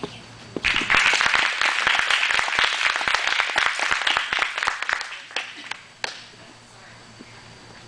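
Audience clapping and cheering, starting about half a second in, then dying away after about five seconds.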